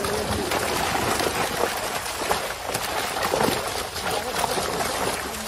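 River water running and sloshing, a steady rushing noise, with indistinct voices in the background.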